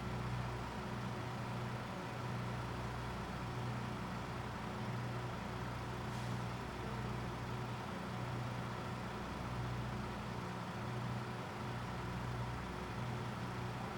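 Diesel railcar engine idling steadily. Its low hum swells and fades in a slow, even rhythm about once a second.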